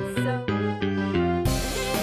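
Background music: a run of separate melodic notes, then drums and a fuller band come in about a second and a half in.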